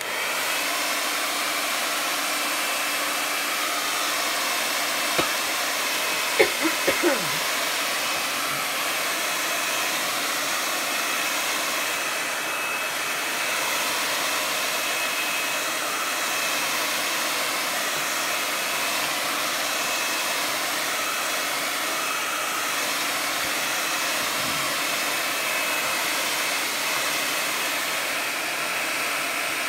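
Hand-held hair dryer blowing steadily over a page of wet Mod Podge glue to dry it. A few brief knocks about five to seven seconds in.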